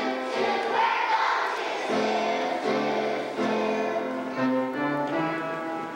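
Music with a choir singing held notes that change slowly from chord to chord.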